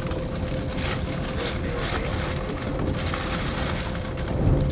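Running noise inside a CRH1 electric multiple unit in motion: a steady rumble with a faint steady hum over it. A heavier low thump comes near the end.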